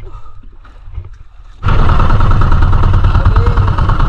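Motorized outrigger boat under way: its engine running loud and steady with a fast pulse, mixed with the rush of wind and water, starting abruptly nearly two seconds in. Before that, only faint knocks and rustling.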